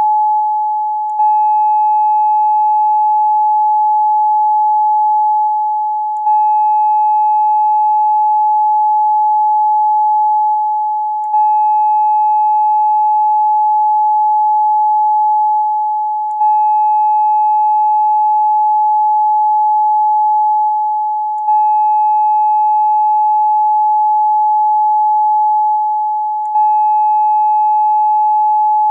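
Steady electronic pure tone at 852 Hz, the solfeggio frequency used for third-eye chakra meditation, with faint overtones above it. It dips slightly in level and restarts about every five seconds, like a looped recording.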